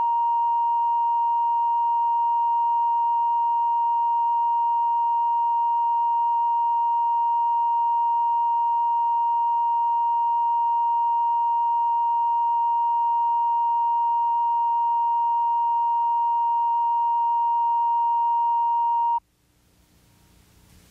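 Steady 1 kHz line-up test tone played with colour bars at the head of a videotape, the reference signal for setting audio levels. It cuts off abruptly about 19 seconds in, leaving faint tape hiss.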